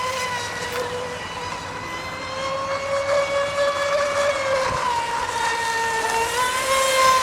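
Fast-electric Copperhead deep-V RC boat running, its electric drive giving a high-pitched whine. The pitch wavers with the throttle, sagging about five seconds in and rising again near the end as it grows louder.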